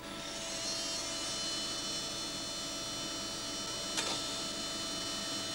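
Bosch Fernseh BCN 50 one-inch videotape machine shuttling its tape to find a stored still frame. It makes a steady mechanical whine of many high tones that rise in pitch over the first second, then hold, with a single click about four seconds in.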